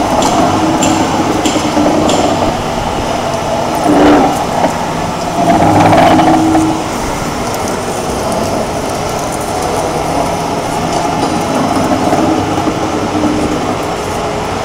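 SKD-914 pipe cutoff and beveling machine running around a large steel pipe, its rotating ring carrying the tool posts as they cut: a steady mechanical drone with a low hum, swelling louder twice, about 4 and 6 seconds in.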